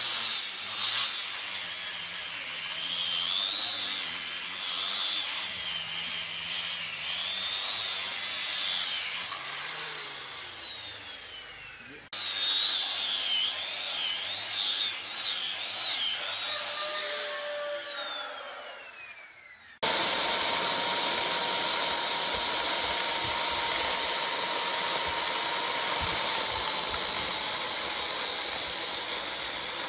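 Handheld electric power tool running, its high whine wavering up and down as it works, twice winding down in a falling whine. About two-thirds of the way in it gives way abruptly to a louder, steadier machine noise with a constant hum.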